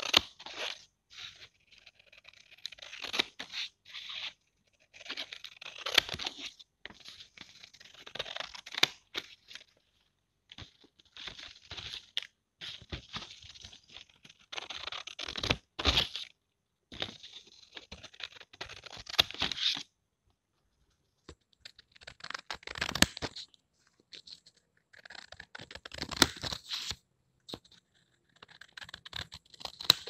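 Scissors cutting paper: about ten runs of cutting, each one to three seconds long with short pauses between, several ending in a sharp click as the blades close.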